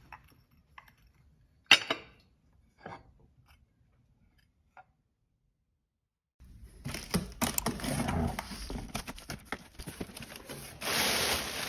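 A few sharp clicks and knocks of objects being handled, the loudest about two seconds in. Then, after a few seconds of silence, continuous rustling and crackling handling noise, loudest near the end.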